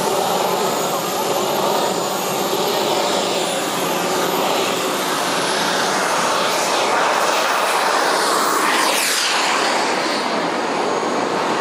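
Jets Munt Merlin M90 turbine engine of a 1/7-scale F-16 RC model jet in flight: a steady jet rush with a thin high whine on top. About nine seconds in the jet passes by and the whine sweeps down sharply in pitch.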